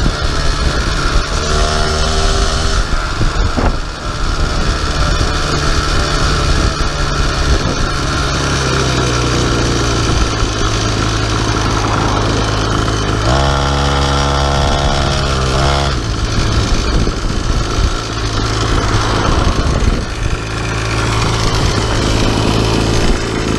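50cc two-stroke pocket bike engine on a motorized bicycle running under way, its engine note shifting up and down with the throttle.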